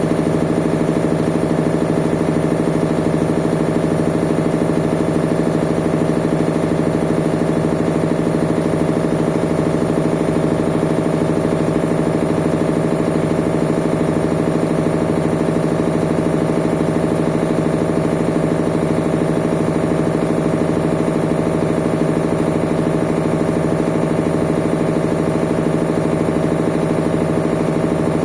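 Whirlpool washing machine running with a steady motor hum and a low throb repeating about once a second.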